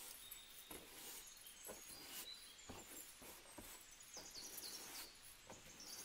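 Near silence: a faint room ambience with scattered soft clicks and short, high, faint chirps.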